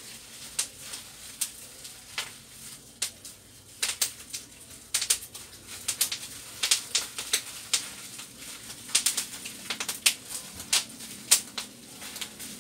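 Irregular sharp clicks and ticks, several each second, some louder than others, over a faint steady hum.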